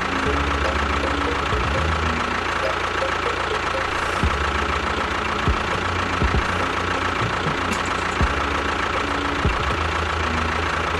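Steady engine-like running of a model construction machine, with a high steady whine and the odd knock or clack.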